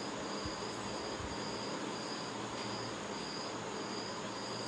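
Cricket chirping in an even rhythm, a little under two chirps a second, over a steady background hiss.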